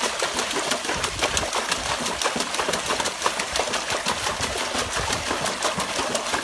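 A dog splashing water in a plastic tub, churning it with its front legs: rapid, continuous splashing.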